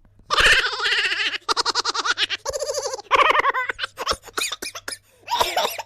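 A person's exaggerated laugh: a fast run of short, high-pitched pulses, broken by a breathy gasp about halfway through, ending in a short final burst.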